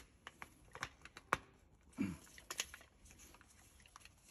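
Scattered light plastic clicks and taps from a fuel filter housing being handled and its locking ring turned, with one sharper click about a second in.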